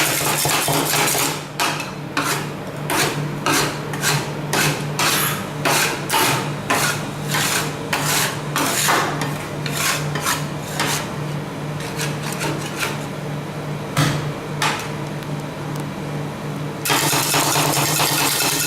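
Metal spatulas on a stainless-steel rolled ice cream cold plate: a long run of sharp chopping strikes, about one or two a second, with steady scraping at the start and again near the end. A steady low hum sits underneath.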